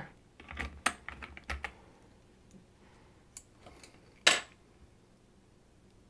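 Plastic keycaps on a Royal Kludge R87 Pro mechanical keyboard being pulled off and handled. A run of small clicks and rattles comes in the first couple of seconds, then one sharp click about four seconds in.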